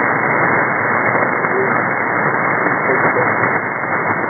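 Steady shortwave static and hiss from an SDRplay receiver on a W6LVP loop, tuned to 4651 kHz upper sideband on the North Atlantic aeronautical channel, with no clear voice transmission.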